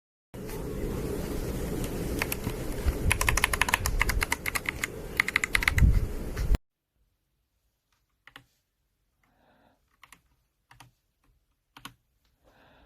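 Typing on a mechanical keyboard fitted with PBT keycaps: a fast, continuous run of key clacks for about six seconds, then stopping, followed by a few faint scattered clicks.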